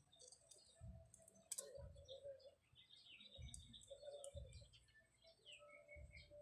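Near silence with faint bird chirps and a few soft clicks, one sharper click about a second and a half in.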